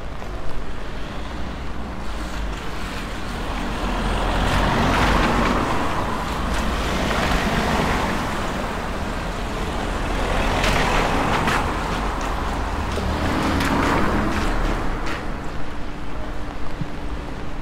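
Road traffic passing on a rain-wet city street: several vehicles swell past one after another, tyres hissing on the wet road, over a steady low rumble.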